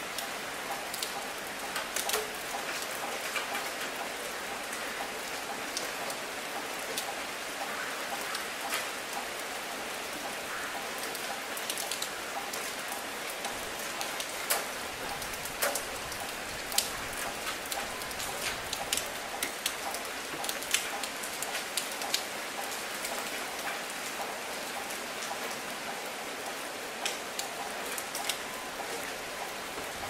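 Light drizzling rain falling on an asphalt road: a steady fine hiss with many individual drops ticking sharply.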